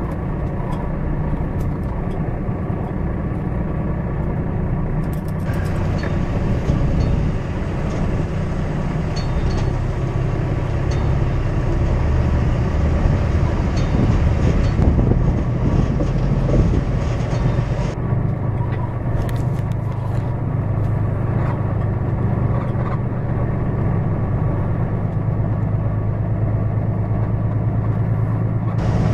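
Kenworth T880 semi truck's diesel engine running steadily as the rig pulls a loaded lowboy trailer along a rough dirt road.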